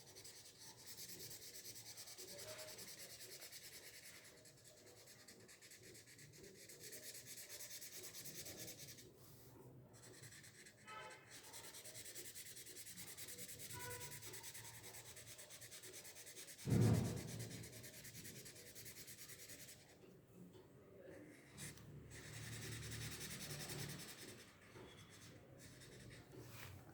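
Faint felt-tip marker strokes rubbing and scratching across paper while colouring in a large area, with one brief thump about two-thirds of the way through.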